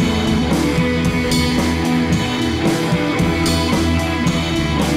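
Background music: an instrumental track led by guitar, with a steady beat.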